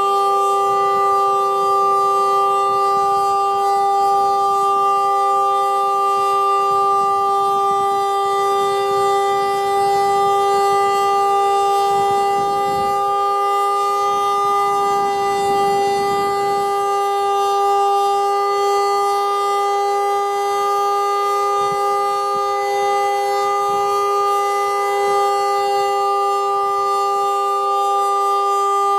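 Darley Model 2 outdoor warning siren sounding a steady alert tone at a constant pitch, with several pitches sounding together. The uploader suspects the siren is underpowered or has bad brushes.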